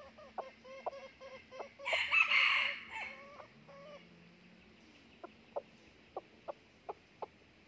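Red junglefowl rooster clucking in short notes, then crowing once about two seconds in, a short crow that cuts off. After the crow comes a quiet spell, then a run of short, evenly spaced clucks, about three a second.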